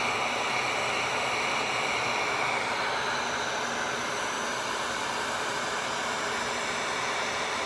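Wagner electric heat gun running steadily on its highest setting: an even blowing hiss with a faint high whine.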